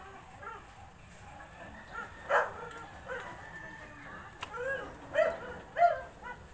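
A dog barking in short, separate barks: one loud bark about two seconds in, then three more close together near the end.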